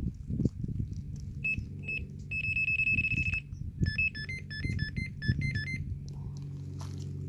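Fox NTX-R electronic carp bite alarms sounding as the line moves over them: two short bleeps, then a steady tone for about a second, then a run of quick beeps stepping between two pitches. The alarms signal line being drawn, with the bobbin hanger lifting.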